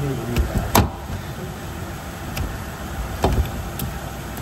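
Two sharp knocks about two and a half seconds apart over a steady low rumble.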